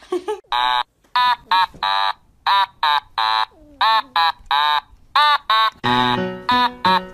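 Young kittens mewing over and over in short, high-pitched cries, one after another; music comes in near the end.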